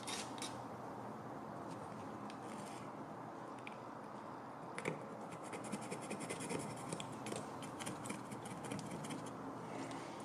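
Scraping and picking stripped paint residue off a metal gauge-stand base with a small pointed tool: dense scratchy clicks and scrapes that grow busier in the second half, with one sharp tick about five seconds in.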